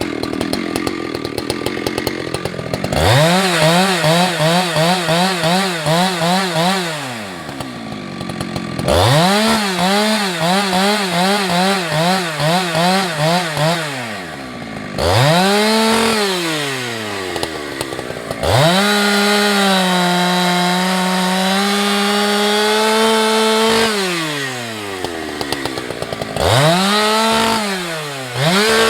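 Husqvarna 365 two-stroke chainsaw cutting wood: the engine revs from idle to full throttle, its pitch wavering as the chain bites, then drops back to idle. This happens five times, the last cut starting near the end.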